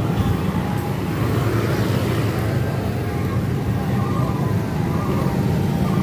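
Motorcycle and car engines running in slow, dense street traffic, a steady low rumble, with voices mixed in.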